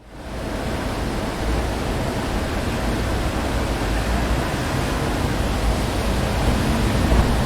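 City street ambience: wind rustling tree leaves over a steady low rumble of traffic, an even, continuous wash of noise that fades in at the very start.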